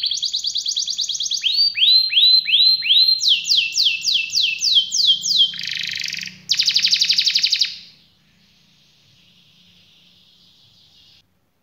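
Red canary singing a rolling song: a fast trill, then a run of repeated sweeping notes, then another fast trill that stops about eight seconds in. A much fainter trill follows until near the end.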